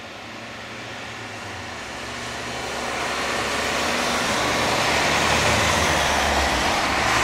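A car's engine and tyres on asphalt, growing steadily louder as it comes slowly up the road.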